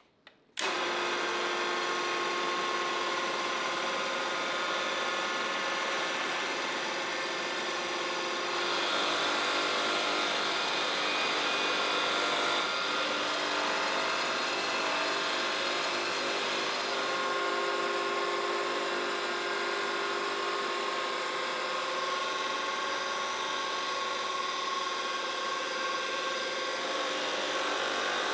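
An electric power tool's motor running steadily with a whine made of several steady tones. It cuts in abruptly just after the start, and its sound shifts slightly about eight seconds in.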